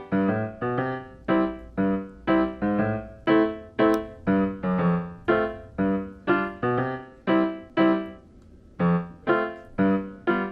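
Background piano music: a simple melody of single notes, each struck and fading, at an even pace of about two to three notes a second, with a brief pause near the eight-second mark.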